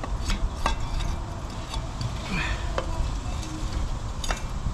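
Scattered metallic clinks and knocks of a cut-open small hermetic compressor's shell and motor parts being handled, over a steady low rumble.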